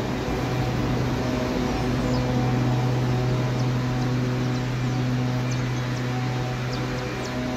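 A steady low mechanical hum, even and unbroken, with short high bird chirps scattered over it.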